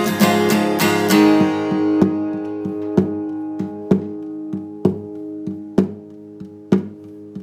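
Acoustic guitar ending a folk ballad: a quick run of strums gives way to a ringing chord, picked once about every second and fading out.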